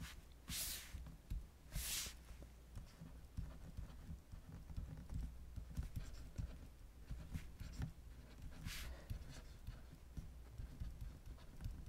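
Faint tapping and scratching of a stylus handwriting on a tablet, a quick run of small taps, over a low steady hum. A few short soft hisses come about half a second, two seconds and nine seconds in.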